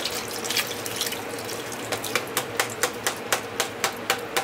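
Soy sauce pouring from two upturned plastic bottles into a stockpot of liquid. The steady pour breaks into regular glugs, about four a second, from about two seconds in, as air gulps back into the bottles.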